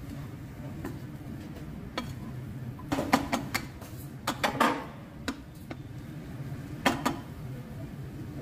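Wooden spatula stirring potato filling in a stainless steel frying pan, knocking and scraping against the pan in irregular clicks that are busiest in the middle. A steady low hum runs underneath.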